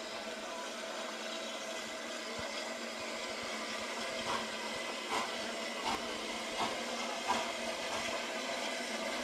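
Steam locomotive No. 847, a Maunsell S15 4-6-0, standing at a platform and hissing steadily, with a few brief sounds over the hiss around the middle.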